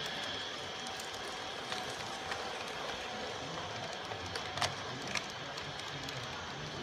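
LGB G-scale model freight train rolling past on its track: a steady rolling whir with a few sharp clicks.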